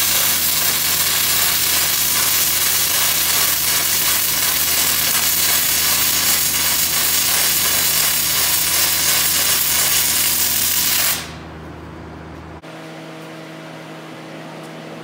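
Electric arc welding on steel plate: the arc gives a loud, steady hiss while laying a short bead that is run a little hot, and cuts off suddenly about eleven seconds in. A quieter low hum carries on after the arc stops.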